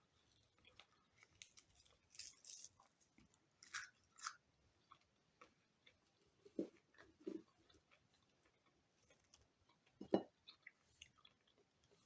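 A person chewing food close up, with crisp crunches as she bites raw onion. There are a few soft, deeper knocks, the loudest about ten seconds in.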